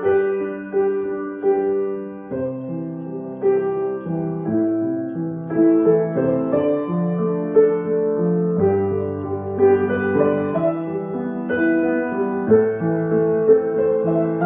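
Solo piano playing a slow melody over held lower notes and chords.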